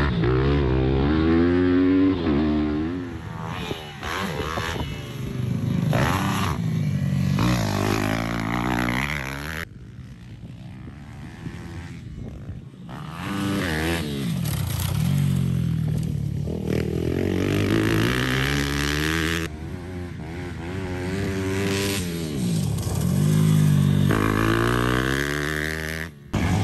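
Pit bike's four-stroke single-cylinder engine revving up and backing off again and again as it is ridden round a dirt track, the pitch climbing through each gear and dropping between. It goes quieter for a few seconds about ten seconds in and cuts off sharply for a moment near the end.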